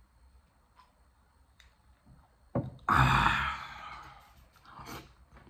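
A man's loud, breathy "haa" exhale right after swallowing a mouthful of baijiu (Chinese white liquor), about two and a half seconds in, fading over a second or so. A smaller breath or mouth sound follows near the end.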